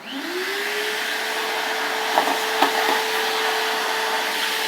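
Stanley 4-gallon stainless steel wet/dry shop vac switched on: the motor spins up with a quickly rising whine within the first half second, then runs steadily with a loud rush of air through the hose. Two sharp ticks cut through a little past two seconds in.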